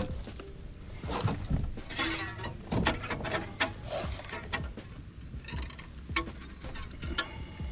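Irregular clicks, knocks and rustles of a caught bass being handled and unhooked over a kayak deck: the lure and hook rattling as they are worked out of the fish's mouth, with the fish bumping against the hull.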